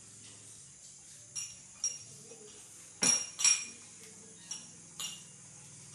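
A series of about six short, sharp clinks of hard objects, the two loudest close together a little past the middle.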